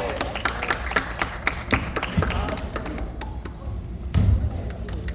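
Basketball game play on an indoor court: a ball bouncing and knocking on the hardwood floor many times, with short high sneaker squeaks about three seconds in, echoing in the gym hall.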